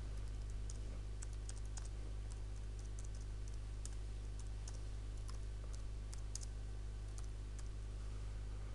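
Typing on a computer keyboard: light, irregular key clicks in short runs, over a steady low hum.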